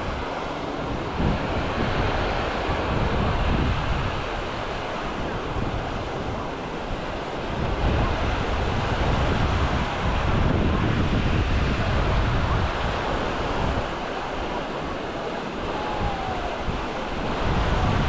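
Small sea waves washing and breaking on a sandy shore, a steady rushing surf, with wind buffeting the microphone in uneven low rumbles.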